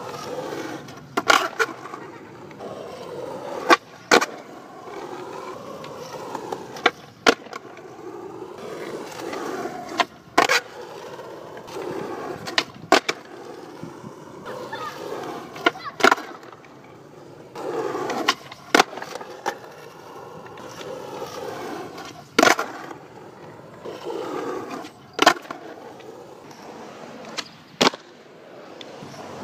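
Skateboard wheels rolling on hard court surfaces, broken every few seconds by the sharp cracks of flatground tricks: the tail snapping down on the pop and the board slapping back down on the landing, often in quick pairs.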